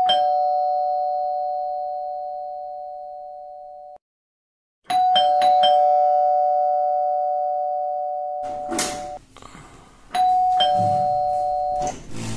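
Electronic two-tone doorbell rung three times, each ring a higher ding followed by a lower dong that fades slowly. The first ring cuts off abruptly.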